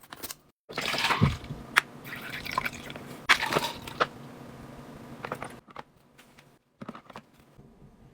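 Liquid being poured or squeezed out in a few short bursts, with several sharp clicks in between.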